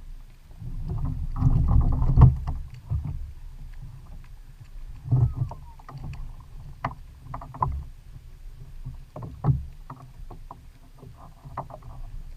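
Water lapping and sloshing against a plastic kayak hull, with wind rumbling over the camera's microphone and scattered small knocks and clicks from the boat. A louder rush of noise comes about a second in.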